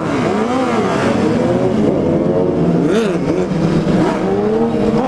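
Yamaha FZ-09's inline-three motorcycle engine under way, its pitch rising and falling as the throttle is rolled on and off, with wind rushing over the microphone.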